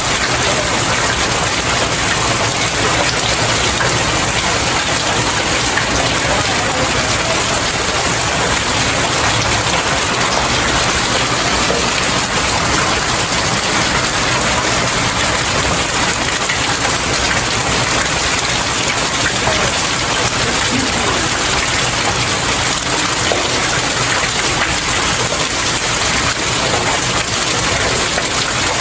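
Steady rain falling on outdoor stairs: an even, unbroken hiss of drops pattering on the steps.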